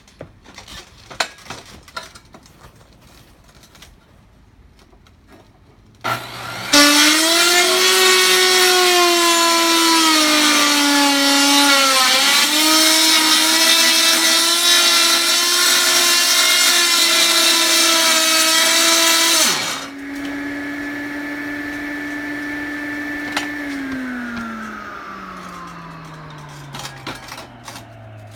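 A few light taps and clicks, then a handheld power cutter spins up about six seconds in and cuts through roofing material with a loud whine and grinding noise for about thirteen seconds. Once the cut ends, the blade runs free at a lower level, then winds down with a falling pitch near the end.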